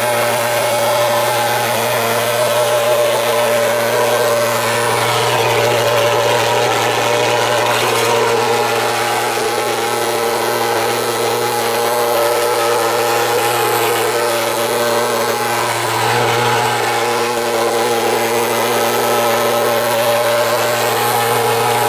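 Handheld thermal fogger's pulse-jet engine running loud and steady as it pumps out insecticide fog.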